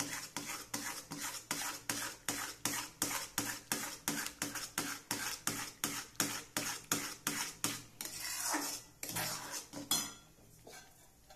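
Steel spoon stirring thick white sauce in a metal pan, scraping against the pan in quick, regular strokes, about four a second. The stirring stops about nine seconds in.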